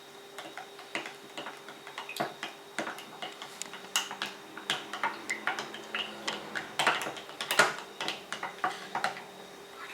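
A utensil stirring garlic cloves in a jar of honey syrup, with irregular clinks and taps against the jar, loudest about seven seconds in.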